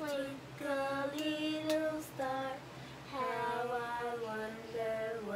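A woman and a young girl singing a children's song together, unaccompanied, in drawn-out notes with short pauses between phrases.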